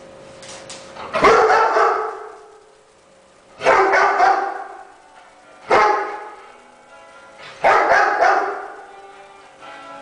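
A dog barking in short bouts of one to three barks, a bout about every two seconds, at a balloon that frightens it.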